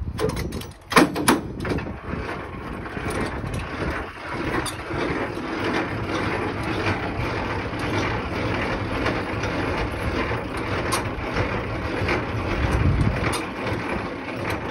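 Semi-trailer landing gear being hand-cranked up: a few metallic clicks in the first second or so as the crank handle is set, then a steady grinding rattle from the crank and gearbox as the legs retract.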